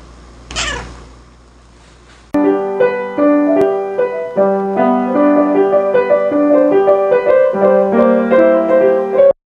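Grand piano playing a flowing melody over low held bass notes, starting about two seconds in after a short falling swish, and cutting off suddenly just before the end.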